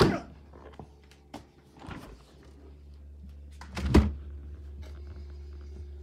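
Samsung French-door refrigerator's doors and freezer drawer being handled, opened and shut: a thunk at the start, a lighter knock about two seconds in, and the loudest, deepest thump about four seconds in. A faint steady hum follows.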